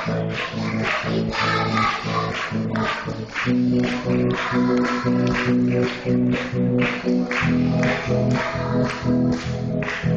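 A children's choir singing over instrumental accompaniment with a steady percussive beat.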